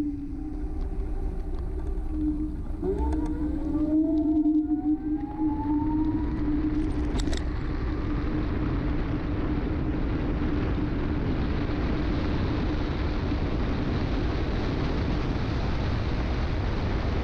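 Personal electric vehicle's motor whining, its pitch rising as the vehicle speeds up, then wind rushing over the microphone as a steady hiss for the rest of the ride.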